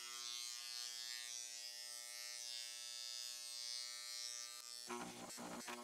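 Hand-held electric engraver rated at 7,200 strokes per minute, running with a steady electric buzz as its carbide tip hammers and scratches across a hard steel plate through a stencil slot. About five seconds in, the buzz turns rougher, with rapid clicks, as the tip chatters on the metal.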